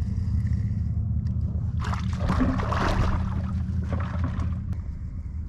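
Steady low engine drone, with a louder rushing noise about two seconds in that fades after about a second.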